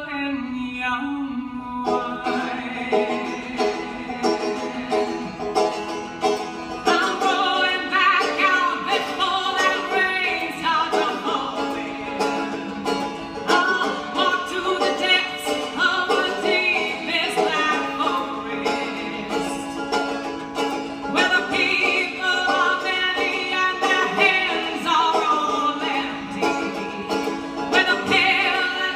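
Live banjo picking accompanying a woman's singing voice, the song running on without a break.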